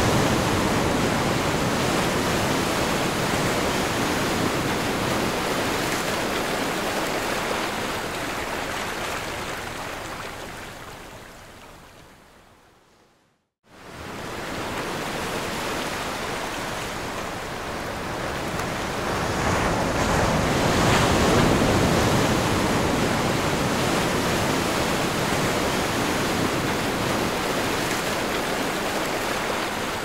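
Ocean surf: a steady wash of waves that fades away to a moment of silence about halfway through, cuts straight back in, and swells again later.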